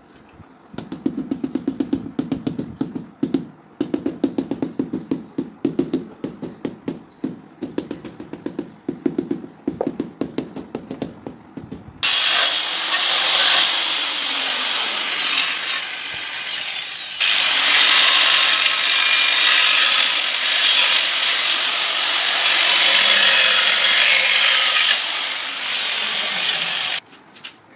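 Rapid knocking for the first twelve seconds, a ceramic wall tile being tapped into place by hand. Then a handheld angle grinder starts suddenly and cuts ceramic mosaic tiles, easing off briefly and bearing in again before it stops near the end.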